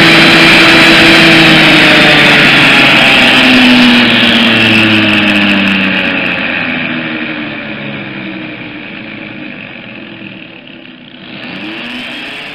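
Husqvarna 316E electric chainsaw, running on power from a solar panel system, cutting through a log at full speed. About four seconds in its sound drops in pitch and level as the motor runs down, then swells briefly again near the end.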